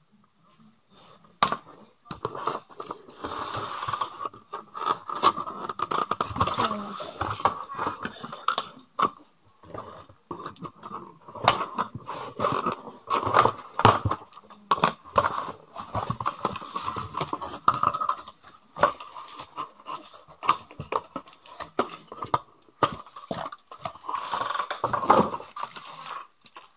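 Red scissors snipping and scraping against a cardboard doll box, with the packaging crunching and crackling as the wire ties holding the doll are cut and pulled free. Irregular clicks and scrapes start about a second and a half in and go on in uneven bursts.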